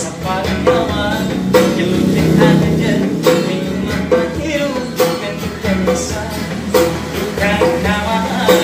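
A man singing to a strummed acoustic guitar, with a djembe-style hand drum beating a steady rhythm: street busking.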